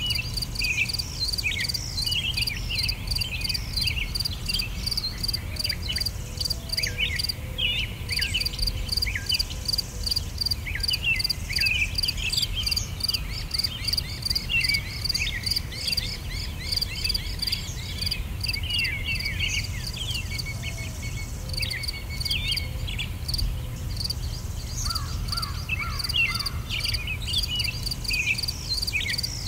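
Nature ambience: insects chirping in a steady, rapid pulse, with birds calling in many short, quick-sliding chirps over a constant low rumble.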